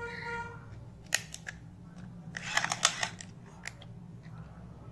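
Small clicks and scrapes of 35 mm film and the camera's plastic film guides being handled as the film leader is pushed and bent toward the take-up spool: a few sharp clicks about a second in, then a quick cluster near the middle.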